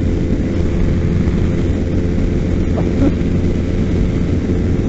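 Kawasaki Ninja 250's parallel-twin engine running steadily at high revs at freeway speed, its drone mixed with heavy wind rumble.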